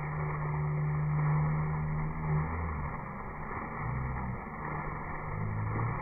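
Water pouring steadily from an overhead spout of a water-park play structure, splashing onto the people and floor beneath. A low hum comes and goes underneath it, strongest for the first couple of seconds.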